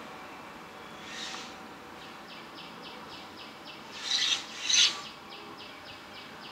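Operating-room equipment during endoscopic coblation of the nasal septum: a faint hiss pulsing about four times a second, with two short, loud hissing bursts about four seconds in.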